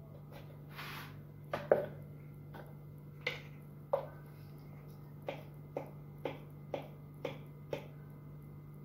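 A series of short sharp clicks, scattered at first and then at about two a second, over a steady low hum.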